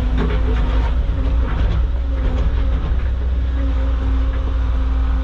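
Caterpillar excavator's diesel engine running steadily, with a constant hydraulic whine as the machine digs. Some rattling knocks in the first couple of seconds.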